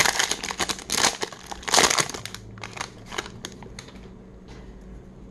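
Plastic wrapper of a 2021 Topps Series 1 hanger pack of baseball cards torn open and crinkled by hand. Dense, loud crackling for about two seconds, then fainter, scattered crinkles as the wrapper is peeled back.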